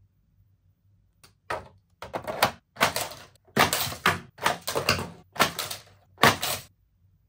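Plastic toy playset clattering as its launcher lever is pressed and a toy monster truck flies into the plastic height tower: a run of about eight sharp clacks and rattles over some five seconds.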